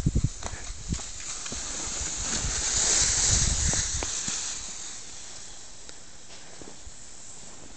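Skate skis hissing over groomed snow, swelling as the skier passes close and then fading as they glide away. A few low thumps near the start.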